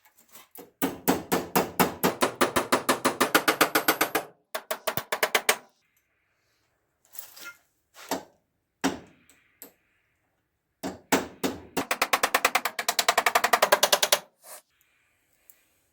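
Hammer beating bent metal toolbox hinges back into shape: two long runs of quick, evenly spaced metal-on-metal strikes with a few single blows between them.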